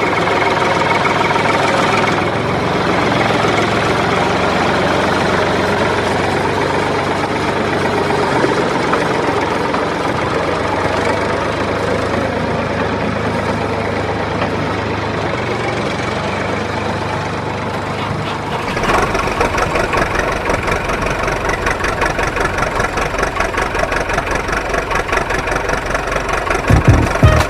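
Battery-powered toy vehicle running with a steady engine-like drone. About two-thirds of the way in it changes to a faster, evenly repeating rattle.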